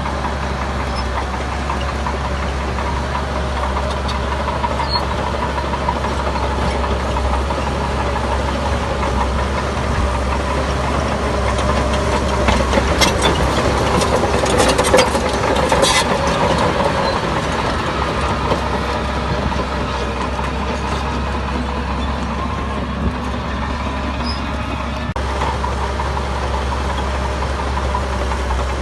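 Heavy construction machine's diesel engine running steadily, a little louder in the middle, where a few sharp clanks come through.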